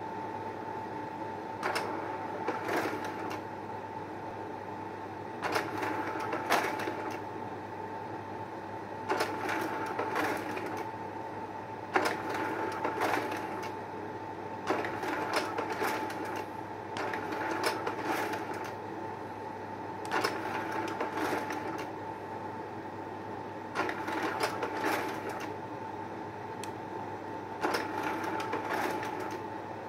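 Braun slide projector running with a steady fan hum, its slide-change mechanism clattering through a cycle about every three and a half seconds as the remote advances the slides, about nine changes in all.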